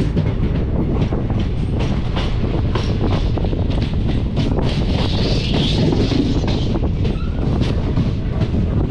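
Express passenger train running, heard from on board: a steady rumble of the coaches with a rapid clatter of wheels over the track.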